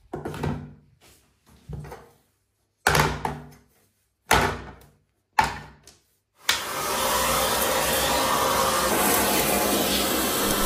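Several separate knocks and clatters of loose parts being handled, with silence between them. About six and a half seconds in, a vacuum cleaner switches on abruptly and runs steadily, sucking debris off the shower tray.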